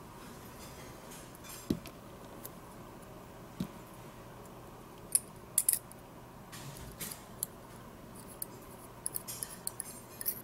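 Small metallic clicks and light clinks from a rotary-tool mandrel, its screw and a thin diamond cutting disc being handled and fitted together by hand. The clicks are scattered, with a few close together about five seconds in and a busier run of them near the end.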